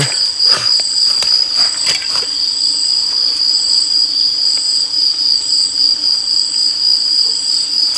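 Steady chorus of night insects such as crickets: one unbroken high-pitched drone with a second, pulsing trill above it. A few faint knocks in the first couple of seconds.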